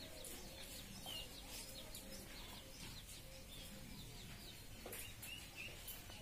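Birds chirping faintly, scattered short high chirps over quiet outdoor background noise.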